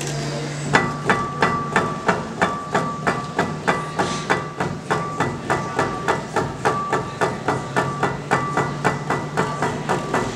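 Ceramic sculpture set rocking on its ceramic base after a push, clacking against it in a steady rhythm of about three sharp knocks a second, each with a brief ringing tone.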